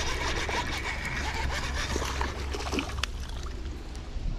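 Baitcasting reel being cranked fast to reel in a hooked bass: a dense, rapid whirring and clicking that thins out after about three seconds, with water splashing as the fish is drawn to the bank.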